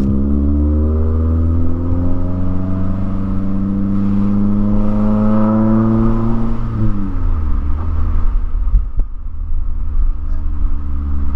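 2009 Mazda3's 2.3-litre four-cylinder with a straight-piped exhaust from a racing header, pulling under load, its drone slowly rising in pitch for about seven seconds. It then drops sharply and settles into a steady lower note.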